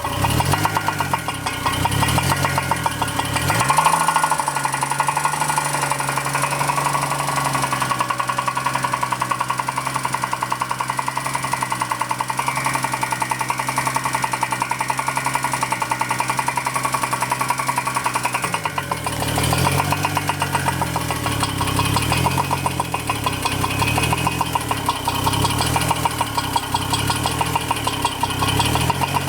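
2002 Chevrolet Trailblazer's remanufactured 4.2-litre inline-six running with a rapid, steady knock that keeps time with the engine speed. The revs rise and fall in the first few seconds, hold steady for about fifteen seconds, then are blipped up and down repeatedly. The knock started before the engine's break-in checkup, and its cause is not yet found.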